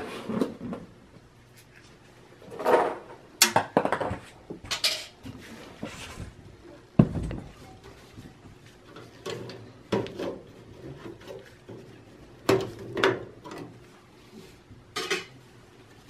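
Dell PowerEdge T310 server's sheet-metal chassis being lifted and handled: scattered metallic clanks, rattles and knocks, with a sharp thump about seven seconds in.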